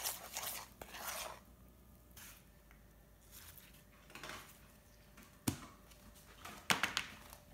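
Utensil stirring thick brownie batter in a stainless steel bowl, scraping against the metal. Then a few softer handling sounds, a sharp click, and a quick run of clicks near the end as a plastic lid is pressed onto a container.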